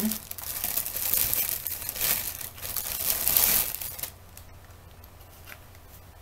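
Plastic packaging crinkling and rustling as it is handled and pulled off, stopping about four seconds in, after which only faint handling ticks remain.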